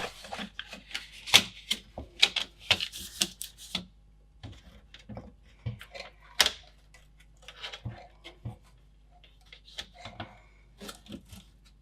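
Irregular clicks, taps and light scuffing as the metal shielding and insulator sheet are handled and pressed into the plastic bottom case of a Commodore 64C.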